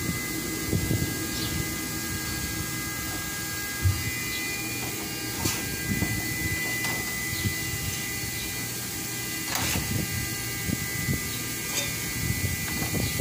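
A steady high-pitched machine hum, several tones at once, with one sharp knock about four seconds in and a few light clicks.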